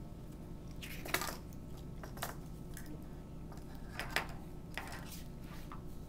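Small sharp clicks and light rattles of a pair of eyeglasses being handled and unfolded, scattered through, the loudest about a second in and again about four seconds in, over a low room hum.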